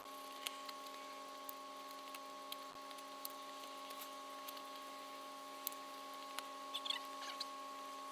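Faint steady hum at one pitch with its overtones, dotted with small clicks and ticks and a short cluster of chirpy ticks near the end. This is background sound played back at six times speed.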